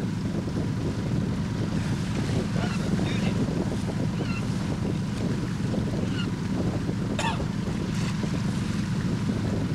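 A sailboat's engine running steadily under power: an even low drone. Water washes along the hull and wind buffets the microphone, with a brief sharp tick about seven seconds in.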